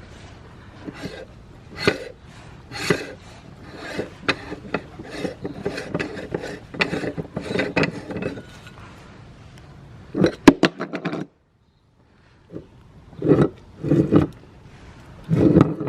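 Meat grinder crunching through hard items, with irregular cracks and scraping over a low running hum. The sound cuts off abruptly about eleven seconds in, then a few more loud grinding bursts follow.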